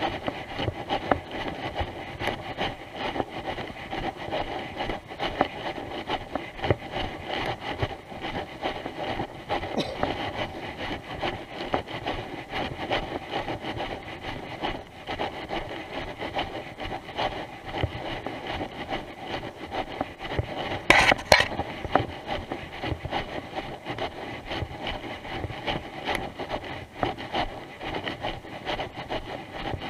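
Continuous rubbing and scraping of jacket fabric against a body-worn camera as the handler walks, with one louder scrape about two-thirds of the way through.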